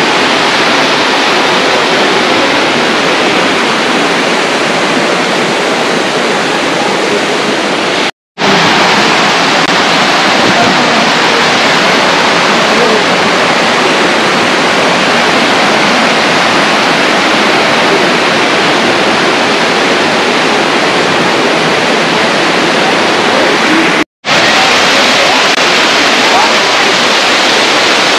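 Water rushing steadily over the rocks of a waterfall and its cascading stream. It cuts out for a moment twice, about eight seconds in and again near the end.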